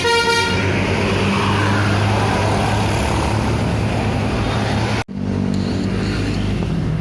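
The last notes of a bus's telolet musical horn end about half a second in. A loud bus engine and road noise follow as a steady low drone with a hiss. The sound cuts out abruptly for a moment about five seconds in, then resumes.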